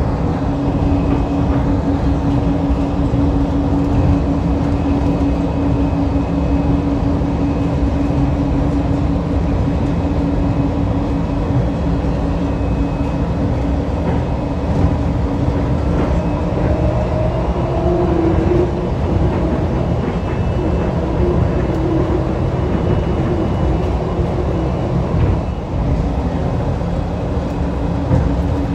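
Inside a moving DFW Skylink automated people-mover train: steady rumble of the running gear under a constant motor whine. A second, higher whine rises briefly about halfway through.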